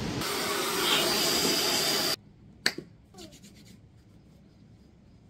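A steady rushing hiss that stops abruptly about two seconds in, followed by one sharp click and a few faint ticks.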